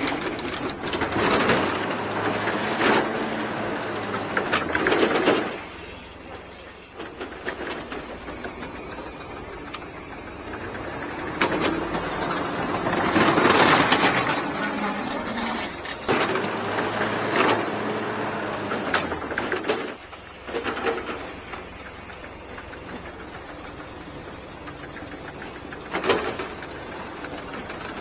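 Ladder-lift truck running its lift, the motor and winch driving the platform along the ladder boom with metallic rattling and clicks. The sound comes in several louder spells with quieter pauses between, and a sharp clank near the end.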